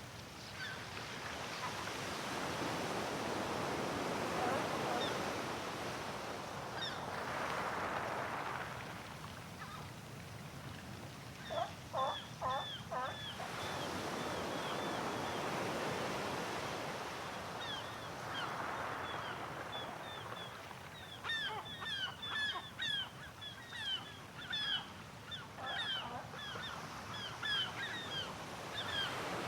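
Sea waves washing ashore, swelling and fading every few seconds, with seagulls calling: a quick run of calls about twelve seconds in, then frequent short cries through the last third.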